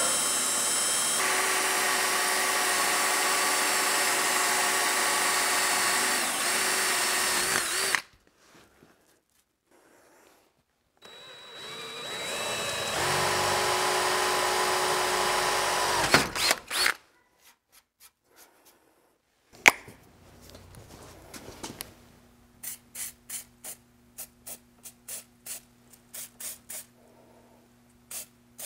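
Cordless drill boring into a steel truck frame rail: it runs steadily for about eight seconds and stops, then a second run builds up and ends with a few clicks. Near the end comes a quick series of short sharp sounds from the aerosol can of red dye penetrant being sprayed.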